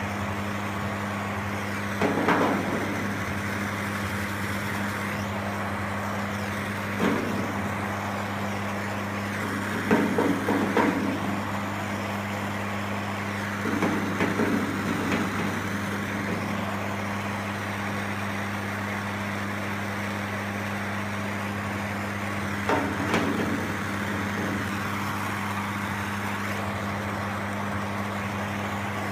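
A paddle working soft body lead on a car-body seam, heard as five short, irregular bouts of rubbing and tapping over a steady hum and hiss.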